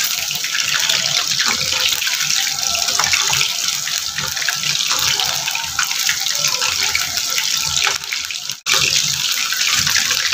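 Marinated chicken pieces deep-frying in hot oil: a steady, dense sizzle of bubbling oil. It breaks off for an instant about eight and a half seconds in.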